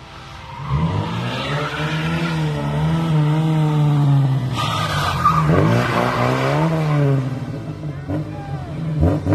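Fiat 131 rally car's engine revving up and down as the car slides through a hairpin bend, coming in about a second in, with a brief tyre squeal about halfway through.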